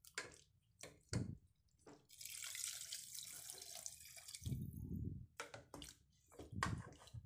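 A stream of water poured into a pot of beef curry for about two seconds, hissing and splashing, with a wooden spoon knocking against the aluminium pot and stirring the wet curry before and after.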